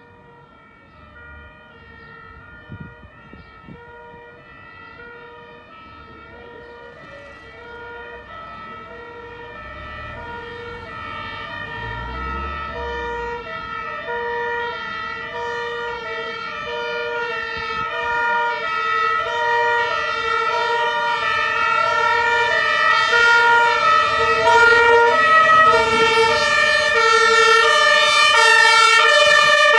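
Fire engine's two-tone siren alternating steadily between two pitches over a low engine rumble, growing steadily louder throughout.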